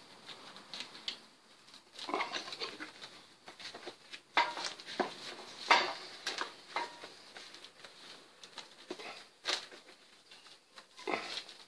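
Irregular clicks, knocks and scrapes of a screwdriver and gloved hands on the plastic lid of an Opel Vectra B's air filter housing as its clips are pressed back into place.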